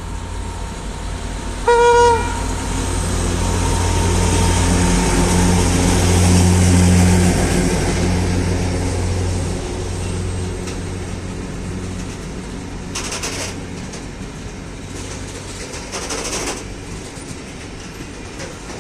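ST44 (M62) diesel locomotive gives one short horn blast about two seconds in. Its two-stroke V12 diesel engine then drones as it passes, building and fading, and a long train of loaded flatcars rolls by with wheels clattering over the rails.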